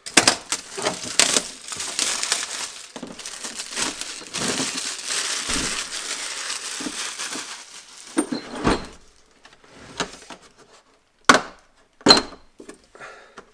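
Clear plastic shrink-wrap being slit and torn off a hard plastic tool case and crumpled, a dense crackling rustle for about seven seconds. Then a knock as the case is set down on the bench, and two sharp clicks near the end as its latches are opened.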